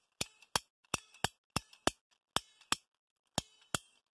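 Ratcheting plastic-pipe cutter clicking in sharp pairs, about one pair every two-thirds of a second with a brief pause near the end, as the handle is pumped and the blade steps through a thick multi-core underground cable.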